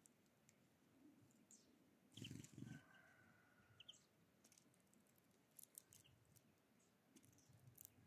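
Faint, scattered clicks of European greenfinches cracking sunflower seeds and hopping on a tray of shells and pebbles, with two soft thumps a little after two seconds in. A faint, drawn-out bird call follows about three seconds in.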